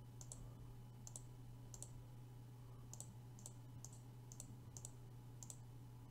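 Faint computer mouse button clicks, about two a second, over a low steady hum.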